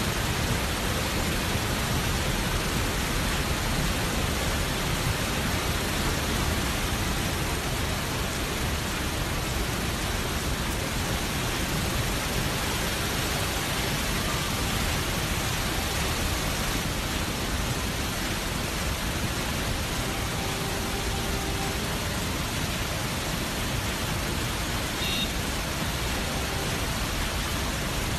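Muddy flash-flood torrent from a cloudburst, rushing and churning over rocks as one steady, unbroken noise of water.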